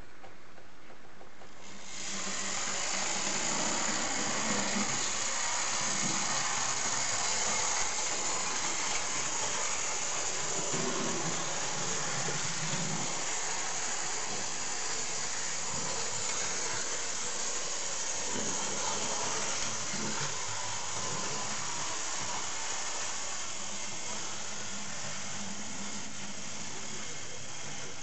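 Märklin model diesel locomotive running along the track: a steady whirring hiss from its motor and wheels on the rails, starting about two seconds in, with a few faint low knocks.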